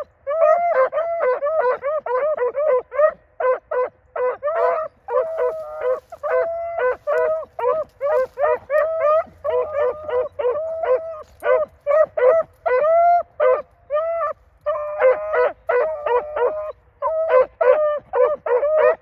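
A pack of rabbit hounds baying on a trail: rapid, repeated bawls with no let-up, at least two dogs' voices overlapping in places.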